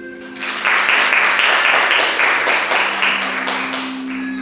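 Audience applauding, starting about half a second in and tapering off near the end, with soft background music underneath.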